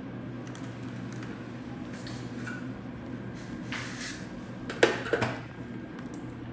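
Dental treatment sounds over a steady low hum of dental equipment: a couple of short hisses of spray, then a quick cluster of sharp clicks of metal dental instruments about five seconds in.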